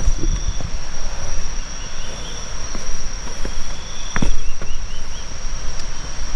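Jungle insects singing: one steady high-pitched drone with faint repeated chirping calls beneath it. A few short sharp clicks break in, the loudest about four seconds in, over a constant low rumble.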